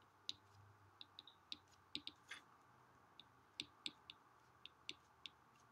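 Stylus tip tapping and clicking on an iPad's glass screen during handwriting: a string of about fifteen faint, irregular ticks.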